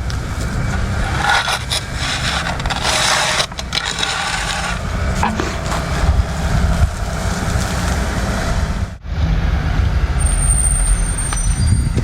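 Heavy truck engine running steadily at a concrete pour, typical of a concrete mixer truck, with scraping and clattering over it. The sound drops out sharply for a moment about nine seconds in.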